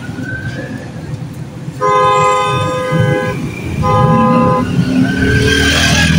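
A vehicle horn blares twice, a long blast of about a second and a half and then a shorter one, over the steady rumble of street traffic. Near the end a passing vehicle grows louder.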